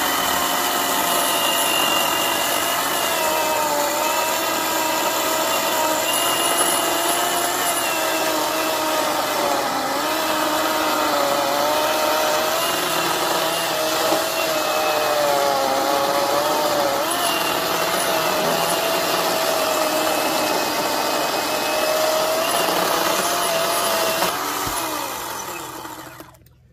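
Ryobi ONE+ 18V HP brushless 10-inch cordless chainsaw, on a 4 Ah battery, cutting through a dry log. Its motor and chain whine dips and wavers in pitch as the chain loads up in the wood. The whine winds down and stops near the end as the cut finishes.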